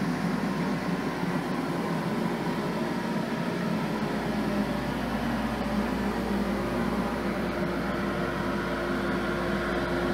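Single-stage shop dust collector running steadily: an even motor-and-impeller hum with a steady tone in it.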